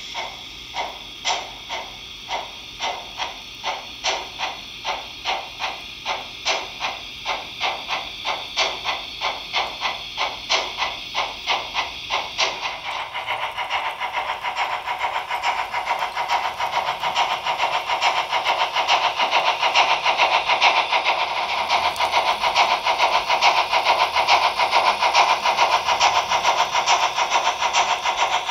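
Sound of a Trix HO-scale DB Br 44 model steam locomotive, played through its onboard speaker: the uneven exhaust chuff of the three-cylinder prototype. Separate chuffs come faster and faster as the locomotive gathers speed, then run together into rapid, continuous chuffing after about 13 seconds.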